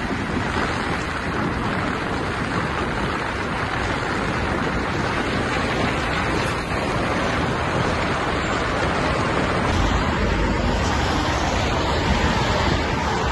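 Wind rushing on a phone microphone over tyre and road noise, recorded from a vehicle moving along a motorway. A deeper rumble comes in about ten seconds in.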